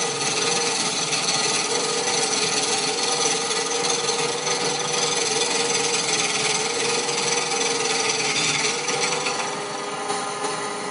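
Homemade woodturning lathe at work: a hand-held chisel scraping and cutting a spinning wooden blank, a steady rasping shaving noise over the electric motor's even hum. The cut eases off near the end.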